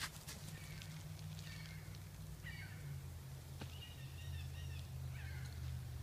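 A series of short, high, wavering animal calls, about five in six seconds, with a low steady rumble underneath.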